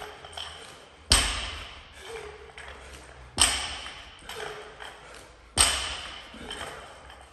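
A loaded barbell with bumper plates hits the gym floor three times, about two seconds apart, between reps of power cleans. Each thud is followed by a ringing rattle of the bar and plates.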